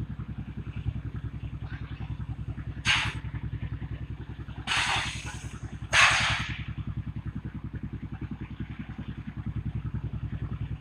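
A ship's engine running with a steady, rapid pulse. Three short, loud, noisy bursts sound over it: one about three seconds in, one around five seconds, and the loudest at six seconds.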